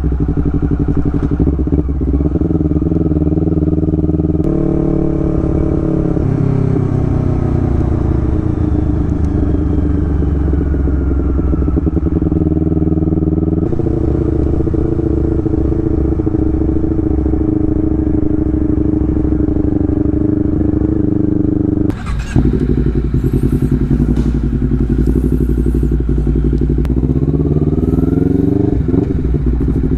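Honda CBR250RR parallel-twin engine running at low rpm through an R9H2 aftermarket exhaust, a low tone that drifts slowly down and back up as the bike decelerates on engine braking. The sound briefly drops out about two-thirds through, and the revs climb again near the end.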